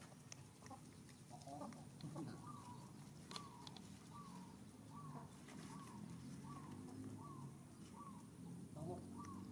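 Faint, regular short calls from chickens, about two a second from about three seconds in, each call rising and then falling in pitch.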